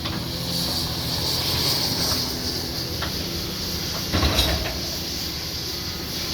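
Diesel engine of a Caterpillar heavy machine running steadily with a high hiss over it, and a short crunching clatter about four seconds in.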